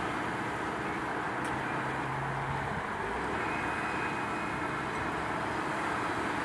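Komatsu PC130 excavator's diesel engine running steadily while the arm works the bucket at the foot of the bank. A low steady hum joins for about a second, a second and a half in.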